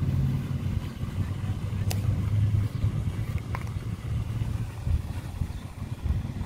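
A low, steady engine hum, with two faint clicks.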